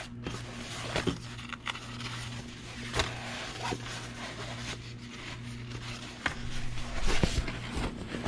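Fabric carrying bag being handled and unfolded on a workbench: cloth rustling and scraping with a few light knocks, busier near the end, over a steady low hum.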